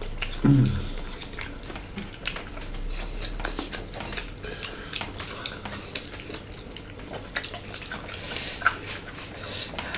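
Close-up mukbang eating sounds: chewing and wet mouth noises, with fingers picking salad and meat out of ceramic plates, heard as many small irregular clicks and crackles.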